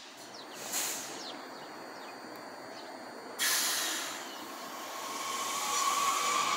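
WMATA Red Line Kawasaki 7000-series Metro train moving along the track with a steady rumble. About three and a half seconds in, a sudden loud hiss of air bursts out and fades, and near the end a thin whine rises slightly.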